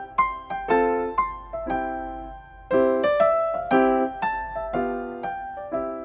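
Background piano music: a light melody of struck notes, several a second, each ringing and fading, with a brief pause about two and a half seconds in.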